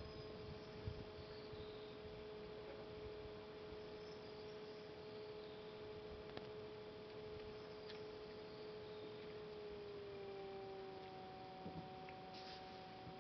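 Electric potter's wheel motor whining steadily while a clay bottle is thrown on it; its pitch steps down a little about ten seconds in as the wheel slows. A few faint ticks are heard.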